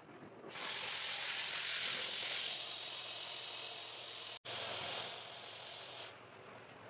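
Steady loud hiss of a hot-water carpet extraction machine's rotary cleaning tool and vacuum hose, air and water rushing through the line. It starts about half a second in, cuts out for an instant a little past halfway, resumes, and drops away about a second before the end.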